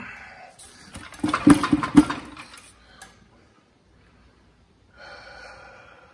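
Metal knocks and clunks as a Volkswagen transmission is pulled away from the engine, the two loudest about 1.5 and 2 seconds in; the transmission is hanging up on the flange at the back and won't slide free. Near the end a steady squeaky tone lasts about a second.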